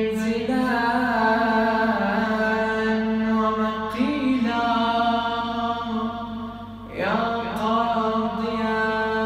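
Male reciter chanting an Arabic supplication (du'a) in long melismatic notes with slow, ornamented pitch turns. He breaks off briefly about seven seconds in and starts a new phrase with a rising glide.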